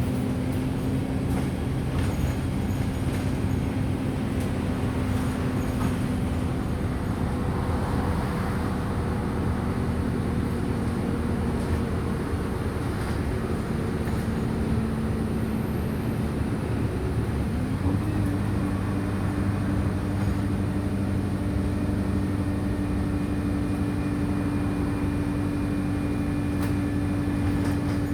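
Wright Streetlite DF single-deck bus running, heard from inside the bus. The engine note eases slowly downward, then about two-thirds of the way through it rises and holds steady at a higher pitch.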